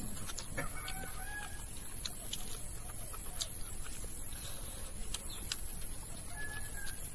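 Chickens clucking now and then in the background, with small sharp clicks from eating by hand off a metal plate.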